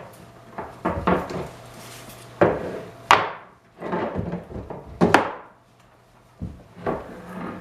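Hard objects knocking and clattering as they are handled and set down: about eight separate sharp knocks spread over several seconds, the loudest about three and five seconds in.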